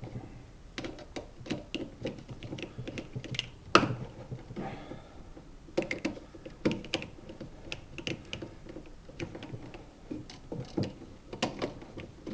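Screwdriver tightening an outlet's terminal screw down on the black hot wire: irregular small clicks and scrapes of the tip on the screw head and of the outlet being handled, with one louder knock about four seconds in.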